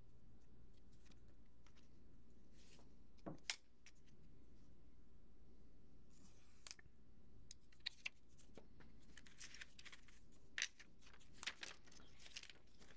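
Faint handling of product packaging: scattered clicks, taps and short rustles as boxes and inserts are moved. There is a brief rustle about six seconds in and a busier run of clicks and rustles near the end.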